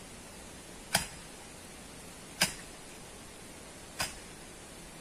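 Three sharp clicks or taps about a second and a half apart over a steady hiss.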